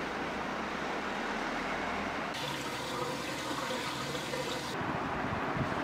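Water running steadily, its sound changing abruptly about two and a half seconds in and again near five seconds.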